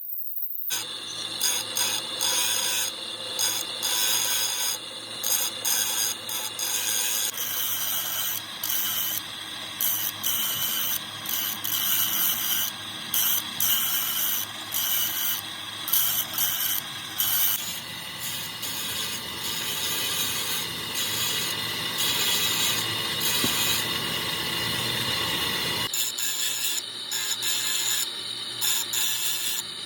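Metalworking tool noise with rapid clicking and scraping, changing abruptly several times as one stretch of work cuts to the next.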